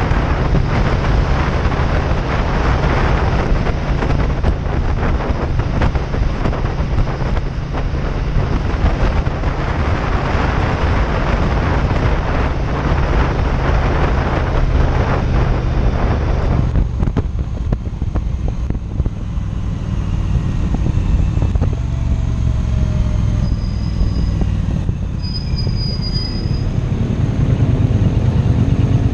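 Triumph Bonneville T120 parallel-twin engine running under way, with heavy wind rush on the microphone. About two-thirds of the way through the wind noise falls away as the bike slows, leaving the engine's low steady note. Near the end the engine picks up revs again.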